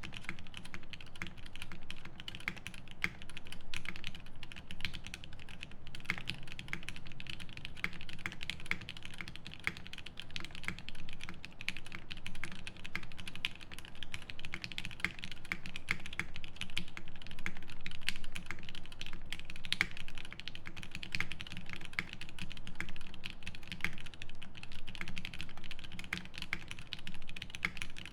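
Continuous fast typing on a Swift65 prototype mechanical keyboard with lubed Lavender switches in an aluminium plate and GMK keycaps. It is a dense, steady stream of key clicks.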